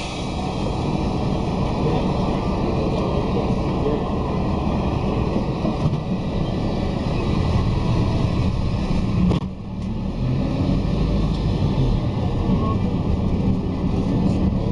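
Engine and road noise heard inside a moving bus: a steady low rumble with hiss. It dips briefly about nine and a half seconds in, then carries on as before.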